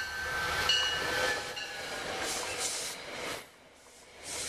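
Metro-North passenger train coaches rolling past on the rails, wheels clicking over the track, with brief high-pitched squeals in the first second or so. The noise drops for a moment about three and a half seconds in, then picks up again.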